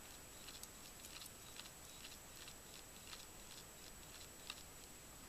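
Near silence with faint, scattered small clicks of hands handling a metal AR-15 lower receiver and its parts, one tick a little louder about four and a half seconds in.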